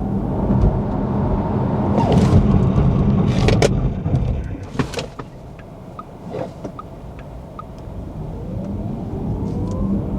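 Porsche Taycan Cross Turismo 4 electric car on the move: a steady rumble of tyre and road noise under a thin motor whine that rises in pitch as it gathers speed. A few sharp knocks come between two and five seconds in. The noise then falls away for a few seconds, and the rising whine and rumble build again near the end.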